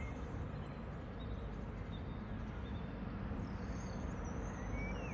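Outdoor ambience: a steady low rumble of wind and distant traffic, with a few short, faint high chirps about a second and a half in and again near the end.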